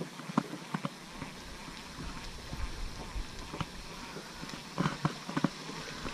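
Baitcasting rod and reel worked during a lure retrieve: scattered light clicks and knocks, a few near the start and a small cluster near the end, over a steady low rumble that comes in about a second in.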